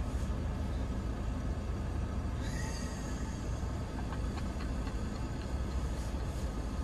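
Vehicle engine and drivetrain rumble heard from inside the cabin as it crawls slowly over a rough off-road track. A few faint ticks come about four to five seconds in.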